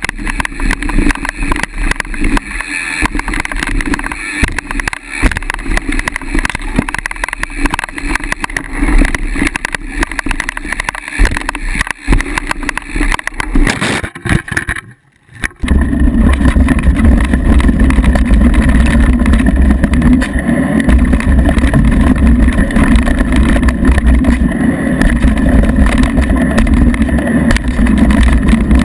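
Mountain bike ridden fast on a dirt trail, heard through a bike-mounted action camera: wind buffeting the microphone over the rumble and rattle of tyres and frame. About halfway through it drops out to near silence for about a second, then goes on louder and steadier.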